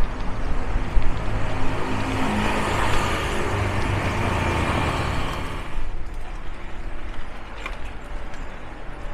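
Road traffic: motor vehicle engine and tyre noise running close by, swelling in the middle and cutting off sharply about six seconds in, leaving quieter street noise.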